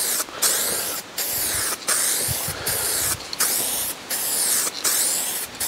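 Paint spraying in short passes: an even hiss that stops briefly about every three-quarters of a second as the next stroke begins, laying down a coat of colour on a car body panel.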